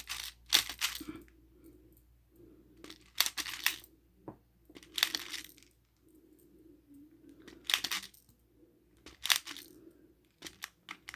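Airsoft BBs rattling into the double-stack magazine of a KJW SIG Sauer P226 airsoft pistol from a speed loader. They come in about six short clicking bursts, a second or two apart, as the magazine is filled.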